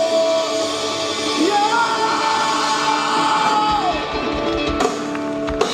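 Live rock band with a lead singer holding long, high sung notes over the band, the pitch stepping up about midway. Two sharp drum hits come near the end.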